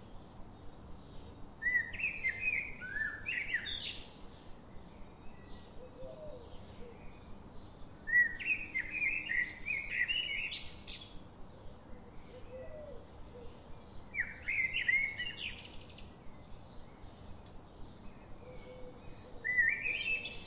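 A songbird singing a short phrase of quick rising chirps about every six seconds, four phrases in all, the last near the end, over faint rapid ticking.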